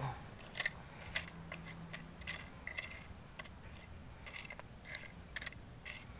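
Faint, irregular crackling and popping, several small clicks a second, from glowing coconut-shell charcoal with a fish head grilling directly on the embers.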